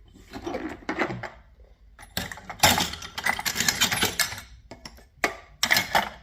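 Metal hand tools clinking and clattering in a toolbox drawer as they are picked up and moved about, in irregular bursts that are busiest in the middle.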